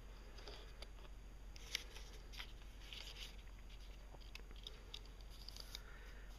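Faint handling noises of a holographic sight and its plastic hard case: scattered small clicks and rustles, with one sharper click about two seconds in, over a low steady hum.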